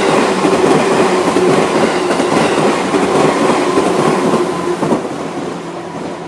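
JR 211 series electric train passing over the level crossing, its wheels clattering over the rail joints. It is loud for about five seconds, then fades as the train moves away.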